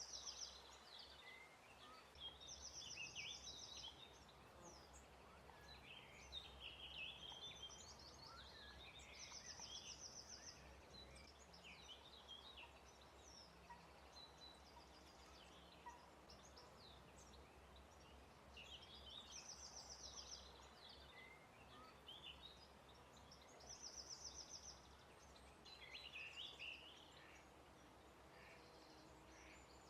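Faint small songbirds singing: a short, fast, high trill repeats every few seconds, mixed with scratchy chattering phrases.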